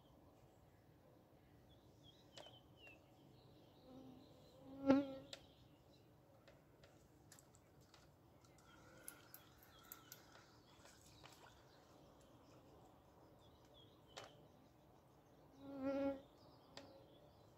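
A flying insect buzzing close past the microphone twice, once about five seconds in and again near the end, each pass swelling and fading within about a second. Faint bird chirps can be heard between the passes.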